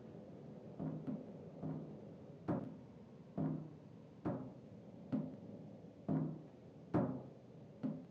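A series of about ten knocks or drum-like strikes, roughly one a second, each ringing briefly with a low pitch before dying away; the first few come a little closer together.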